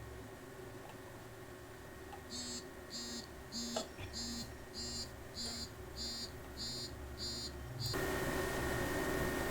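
Short electronic beeps repeating evenly about twice a second for several seconds, then a steady hiss begins near the end.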